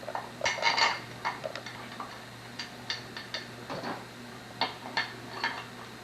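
Light, irregular metallic clicks and clinks of head bolts being set into the cylinder head of a Rotax 787 engine, a quick cluster about half a second in and scattered single clicks after.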